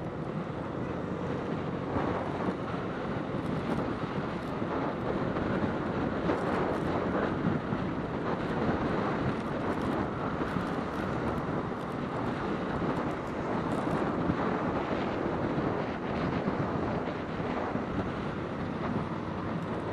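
Wind rushing over the microphone of a moving motorcycle, mixed with road and engine noise as a steady rush with no clear engine note.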